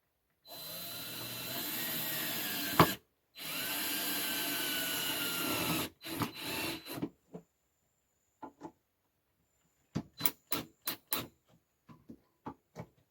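Power drill driving screws into wood: two steady runs of about two and a half seconds each, with a sharp knock between them, then a few short bursts of the trigger. Near the end comes a quick string of short clicks.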